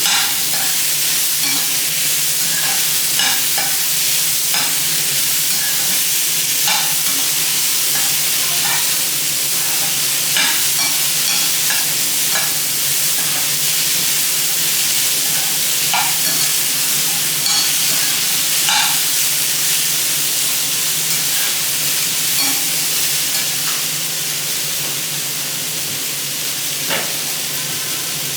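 Sliced onions, capsicum, carrots and tomatoes sizzling as they fry in a pan: a steady hiss with scattered pops and crackles, easing a little near the end.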